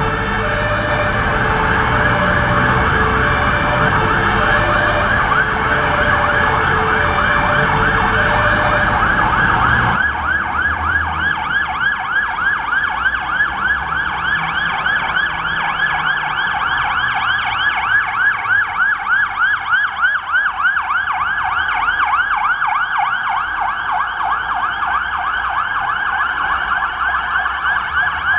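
Fire engine's electronic siren on an emergency run, a fast yelp sweeping up and down several times a second. For the first ten seconds a lower two-note signal alternates about once a second over heavy engine and traffic rumble, and both stop abruptly.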